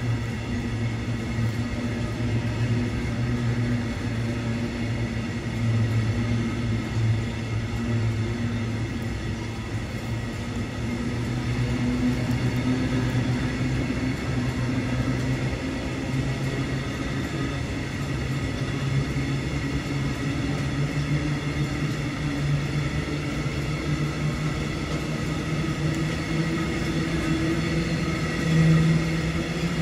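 Freight train of open coal wagons rolling past on the track: a steady rumble of steel wheels on rail with low droning tones.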